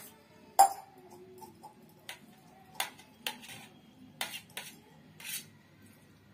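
Kitchen knife clinking and scraping against a stainless steel plate while cutting a block of boiled egg into pieces: a string of sharp clicks, the loudest about half a second in.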